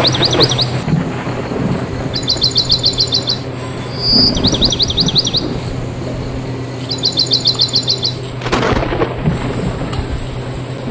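Bird song repeating a two-part phrase: a clear whistle followed by quick up-and-down notes, then a fast run of short notes, twice over a low steady hum. A brief rush of noise comes about eight and a half seconds in.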